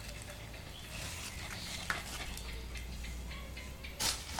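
A cat and a dog scuffling on a plastic sack and cardboard: scattered scrapes and rustles, a sharp tick about two seconds in, and a louder rustle of the sack about four seconds in as the cat springs away.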